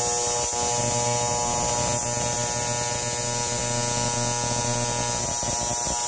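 AC TIG welding arc on aluminium plate: a steady electrical buzz with a high hiss over it.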